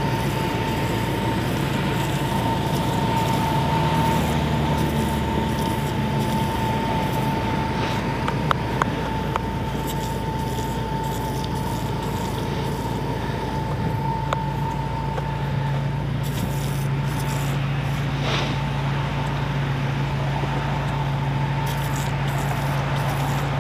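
Hand-pumped foam sprayer (AMMO NYC aerator) hissing out car-wash solution in a steady spray over a low steady hum, with a few short clicks about a third of the way in. In the sub-zero cold the solution is thick and only mists instead of foaming.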